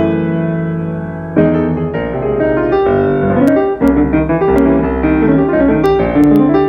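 Solo jazz piano on a Yamaha grand: held chords ringing, a new chord struck about a second and a half in, then moving melody and bass notes.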